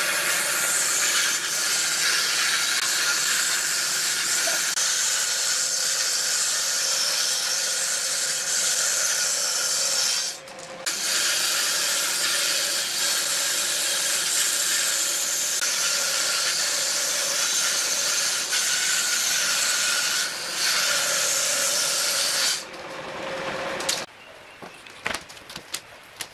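Table saw ripping a wooden board lengthwise: the blade cutting with a steady, loud hiss, with a brief break about ten seconds in. The cutting stops a few seconds before the end, followed by a few light clacks of thin wooden strips being laid down on a bench.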